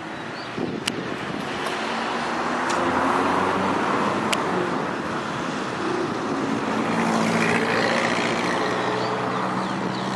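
Diesel freight locomotive running under power as it hauls a train out of the yard, a steady low engine hum that grows louder from about two seconds in and again near the end.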